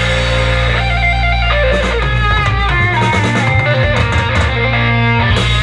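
Guitar-led instrumental rock track played loud through a home-built boombox's woofer and two coaxial speakers, fed over Bluetooth to a TPA3116D2 amplifier. The music plays steadily without cutting out.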